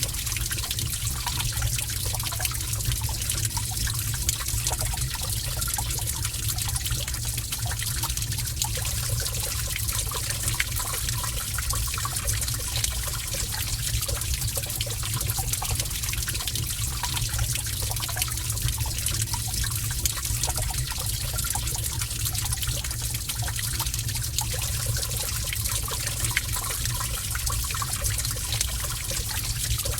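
Gentle running water trickling steadily in a cave, with fine droplet-like patter over a steady low rumble.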